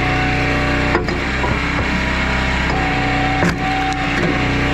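A log splitter at work: an engine running steadily while wood gives sharp cracks about a second in and again around three and a half seconds in.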